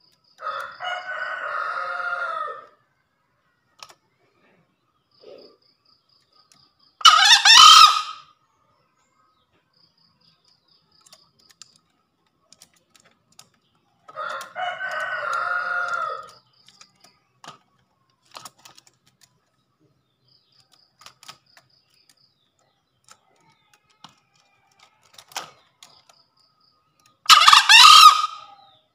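Green junglefowl crowing: two loud, shrill crows about a second long, about seven seconds in and near the end. Between them come two softer, longer crows from another fowl, each about two seconds, one near the start and one about halfway through. A faint, rapid high ticking comes and goes in the background.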